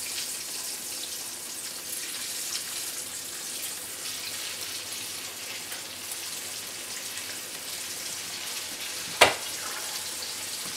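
Flour-dredged rabbit legs frying in hot grease in a skillet, a steady sizzle with fine crackling. About nine seconds in, a single sharp knock.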